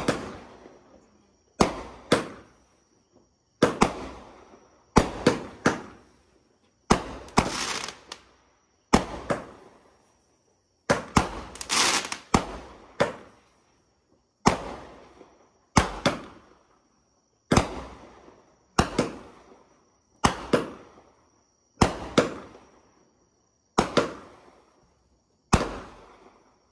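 High Falutin consumer firework cake firing shot after shot: sharp bangs about every second and a half, many coming as a quick double bang, each trailing off before the next.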